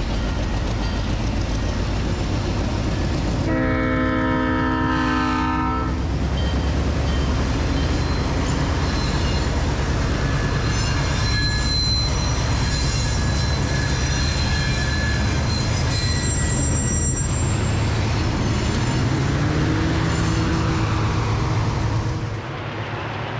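Several Alco diesel locomotives with 251-series engines working hard upgrade, giving a heavy, steady low rumble. A single chime-horn blast of about two and a half seconds sounds a few seconds in, thin high squeals come and go through the middle, and an engine note rises near the end before the rumble drops off suddenly.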